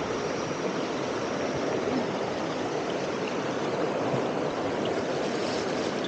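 Steady rush of a waterfall and fast-flowing stream water.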